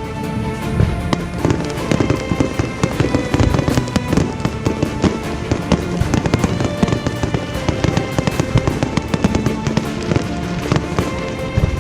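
Fireworks going off in a rapid, continuous run of sharp bangs and crackles, with music playing underneath.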